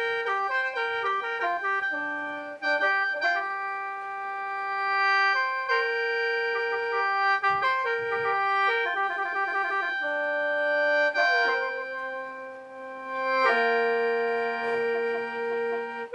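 Khaen, the Lao bamboo free-reed mouth organ, played solo in lai sao mode. Several notes are held at once as a drone under a changing melody, with quick fluttering repeated notes in places.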